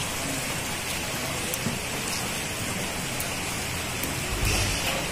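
Steady rushing and splashing of shallow stream water flowing across a road, where vehicles are being washed by the bucketful. A low rumble comes in near the end.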